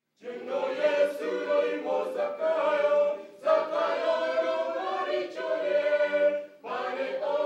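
A choir singing in harmony, in long sung phrases with short breaks between them about three and a half and six and a half seconds in.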